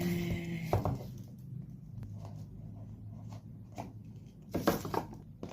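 Scattered light knocks, taps and rustles of a package being handled and unboxed, with the sharpest knock about two-thirds of the way in. A short low steady tone sounds right at the start.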